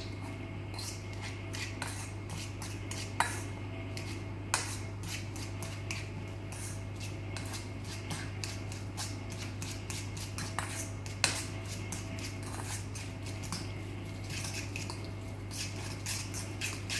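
Fork mashing ripe banana in a stainless steel bowl: irregular scraping and clicking of metal on metal, with a few louder knocks against the bowl. A steady low hum runs underneath.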